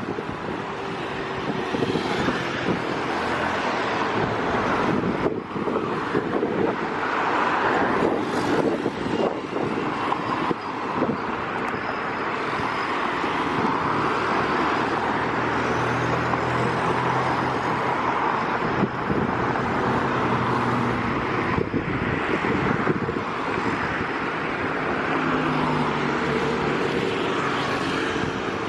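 Steady road traffic noise from passing vehicles, with a low engine hum standing out through the middle stretch.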